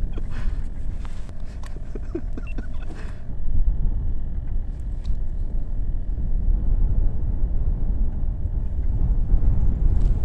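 Low wind rumble buffeting the microphone on open ice, steady throughout, with a few faint clicks and scrapes in the first three seconds from handling the ice-fishing rod and reel.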